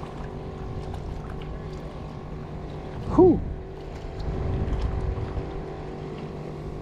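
Electric trolling motor, a Minn Kota Endura Max, humming steadily on a fishing kayak, with wind rumbling on the microphone that grows stronger for about a second just past the middle.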